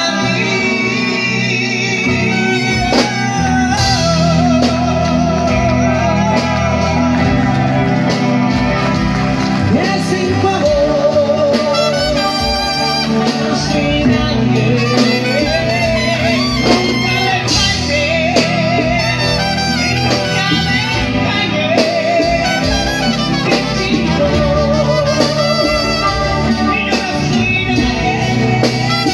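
Live band music with a man singing into a microphone over electric guitars and drums, his held notes wavering in pitch.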